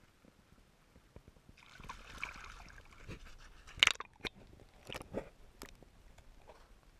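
Water sloshing and splashing as the camera is dipped below the surface, then a sharp knock about four seconds in and a few fainter knocks and clicks heard underwater.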